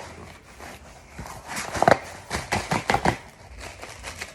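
Cardboard box being handled and pulled open by hand: a quick run of rustles, scrapes and knocks.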